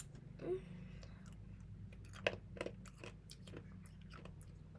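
A person chewing hard candy, with scattered small crunches and clicks.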